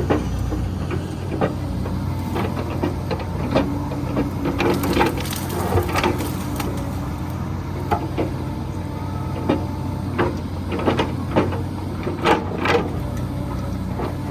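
Komatsu PC120 hydraulic excavator at work: its diesel engine runs steadily under a hydraulic whine that comes and goes, with many sharp, irregular knocks and clanks, thickest around the middle and near the end.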